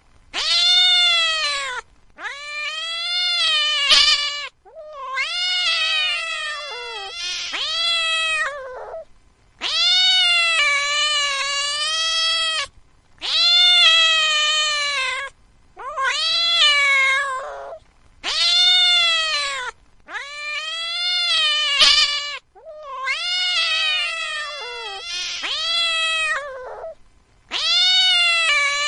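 A cat yowling: a run of about ten long, drawn-out calls, each a couple of seconds or more, rising and falling in pitch with short breaks between.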